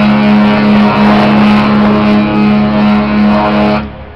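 AIDAsol cruise ship's horn sounding one long blast: a loud, deep, steady tone with many overtones, lasting nearly four seconds and cutting off sharply.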